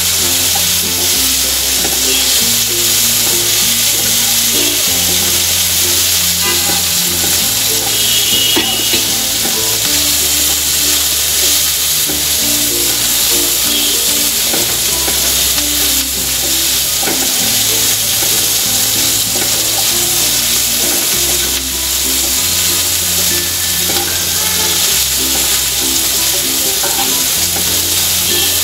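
Chopped onion and garlic sizzling in oil in a frying pan, stirred steadily with a wooden spatula. Background music with a slowly changing bass line plays underneath.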